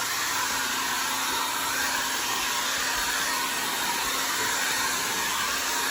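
Handheld blow dryer running steadily: an even rush of air with a faint low motor hum underneath.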